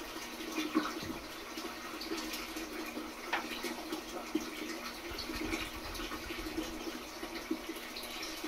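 Steady trickling and bubbling of water in a turtle aquarium, with many small crackles over a constant low hum.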